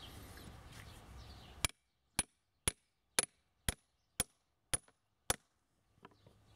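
Ball-peen hammer striking a grommet-setting die, driving a grommet into a canvas tarp: eight sharp metallic strikes, about two a second, each with a brief high ring, starting about a second and a half in.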